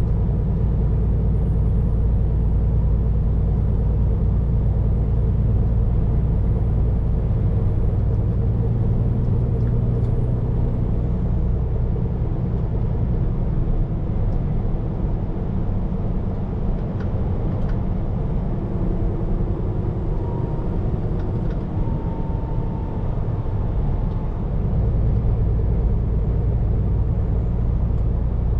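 Scania P410 truck's engine and road noise heard from inside the cab, a steady low drone that eases off about halfway through and builds up again near the end.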